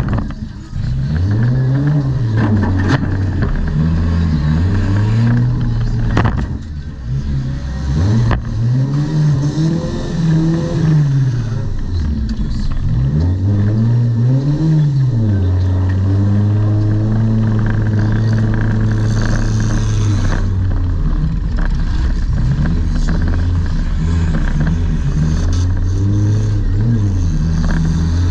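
Demolition derby car's engine heard from on board, revving up and dropping back again and again, then holding a steady note for several seconds around the middle, with a few sharp knocks along the way.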